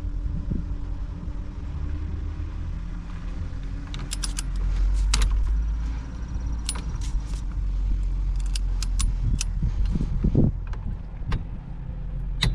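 Irregular sharp metallic clicks of a torque wrench ratcheting as the steering-wheel retaining nut is tightened to torque. A steady low rumble runs underneath.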